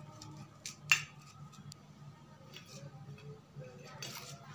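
Steel spoon stirring a crumbly chhena and spice mix in a small stainless steel bowl: soft scraping and scattered light clicks, with one sharp clink of spoon on bowl about a second in. A faint steady low hum runs underneath.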